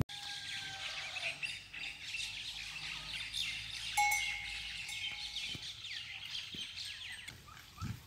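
Many small birds chirping at once, a dense chorus of short, high, quick calls.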